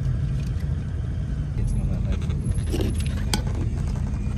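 Van's engine and tyres giving a steady low rumble heard from inside the cabin, with a few light clinks and rattles about three seconds in.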